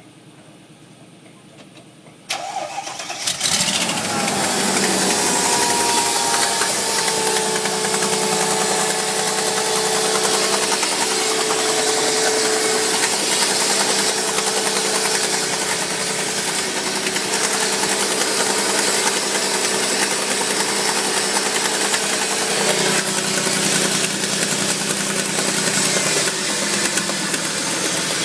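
Mercedes G-Class engine cranked and catching about two seconds in, then idling with a loud, constant rattle. The owner says this rattle comes with every start, hot or cold, and dies away after a minute or two.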